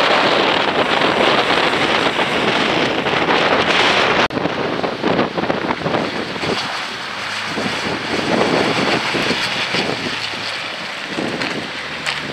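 Heavy wind buffeting on the microphone over a Nissan Patrol 4x4's engine as it drives along a muddy track. About four seconds in, the wind noise cuts off abruptly, and the engine's low steady drone comes through more plainly.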